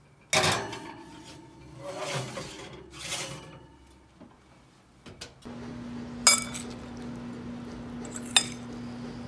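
Kitchen handling noises: a sudden clatter about half a second in and a couple of scraping swells, then a steady low hum with a few sharp clinks of a metal spoon against a glass bowl as salsa is mixed.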